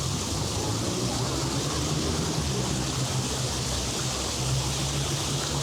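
Steady rushing noise of running water, with a low hum underneath.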